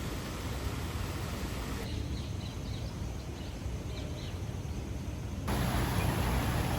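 Outdoor background noise with a low rumble, changing abruptly twice at edit cuts; in the middle stretch, faint short bird chirps are heard over it.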